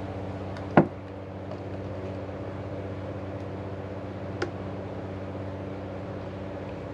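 Steady machine hum made of several fixed tones, with a sharp knock about a second in and a lighter click a few seconds later.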